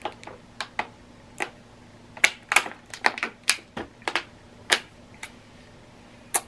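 Thin plastic water bottle crinkling and crackling as it is drunk from and handled: a string of irregular sharp clicks, bunched most closely in the middle.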